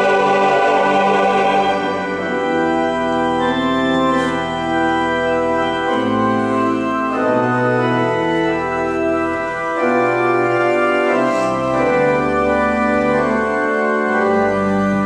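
An organ playing an instrumental interlude of sustained chords over a slowly moving bass line. It follows the choir's last held notes, which fade out in the first two seconds.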